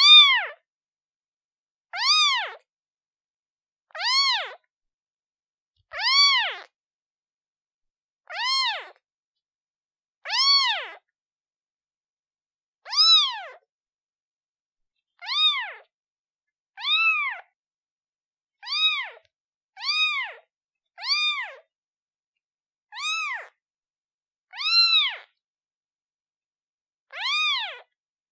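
Newborn kitten meowing again and again, calling for its mother: about fifteen short, high meows, each rising and then falling in pitch, one every one to two seconds, with silence between them.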